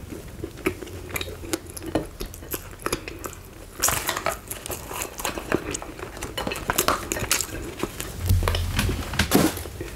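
Close-miked chewing of a soft biscuit, with small clicks. After about four seconds, a cardboard fry box is handled and tipped, and fries spill onto a plate with a run of crinkling, rustling clicks. A dull thump comes near the end.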